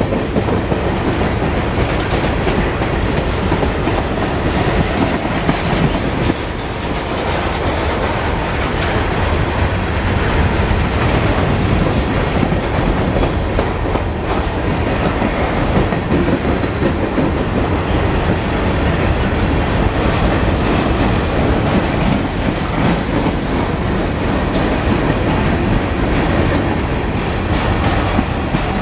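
Long manifest freight train's cars rolling past: a steady rumble of steel wheels on rail with a clickety-clack over the rail joints.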